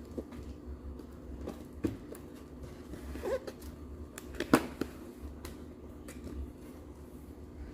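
Scattered light clicks and knocks of a toy set and its packaging being handled, with one sharper knock about halfway through.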